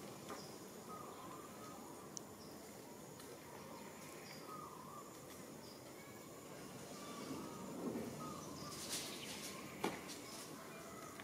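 Outdoor ambience with short, repeated bird-like chirps over a faint steady hiss of insects and background noise. A few sharp clicks stand out, the loudest one near the end.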